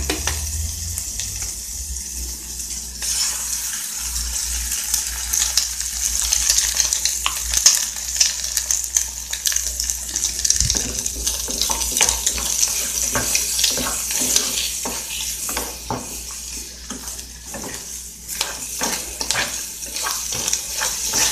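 Sliced calabresa sausage and bacon sizzling in a saucepan in their own fat, with an egg frying among them; the sizzle grows louder about three seconds in. From about halfway on, a spatula stirs and knocks against the pan in quick clicks.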